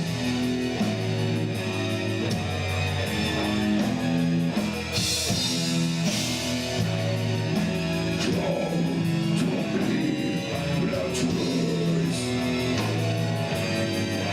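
Rock music: guitar chords changing every second or so over bass and a steady drum beat.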